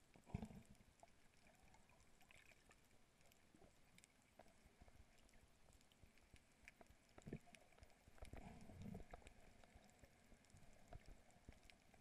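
Faint underwater sound picked up by a GoPro camera: a low hiss scattered with small clicks and crackles, a dull thump about half a second in, and a few more low thumps between about seven and nine seconds in.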